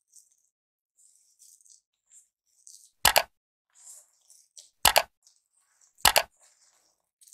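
Three sharp mouse-click sound effects, about three, five and six seconds in, each a quick double click. Between them, faint wet squishing of thick urad dal batter being mixed by hand in a steel bowl.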